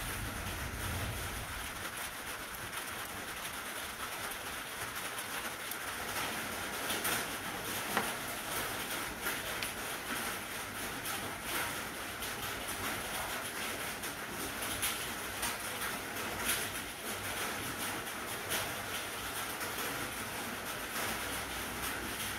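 Small clicks and rattles of an RC servo's plastic parts being handled and taken apart by hand, scattered irregularly over a steady hiss.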